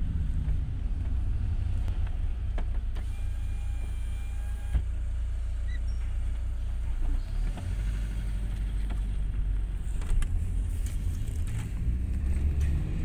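Car engine and cabin heard from inside as a steady low rumble while the car creeps through a toll booth. About three seconds in, an electric window motor whines for under two seconds and stops with a clunk, and a few light knocks follow later.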